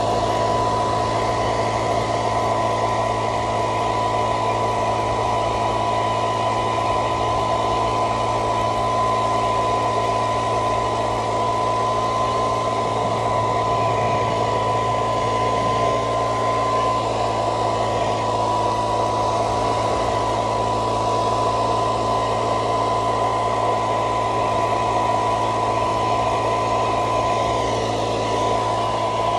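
An electric cart's air blower running steadily as it blows air over tomato flowers to pollinate them: an even rush of air with a constant whine and a low hum under it.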